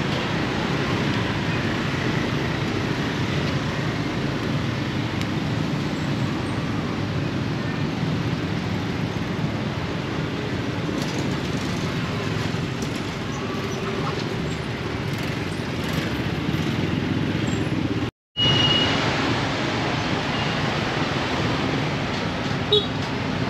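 Steady outdoor street ambience dominated by road traffic noise from passing vehicles. The sound cuts out completely for a moment about eighteen seconds in, then resumes.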